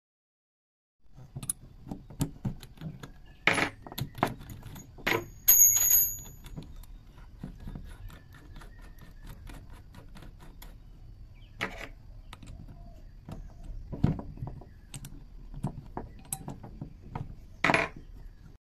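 Metal clicks, taps and clinks from handling a steel twist drill bit and a keyed drill chuck as the bit is fitted into the chuck by hand, with one brief ringing clink about five and a half seconds in.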